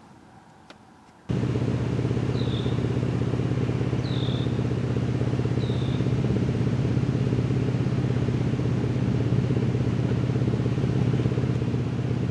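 Faint at first, then from about a second in a steady vehicle engine drone, a low hum of several even tones at a constant speed. Three short high chirps sound over it, spaced about a second and a half apart.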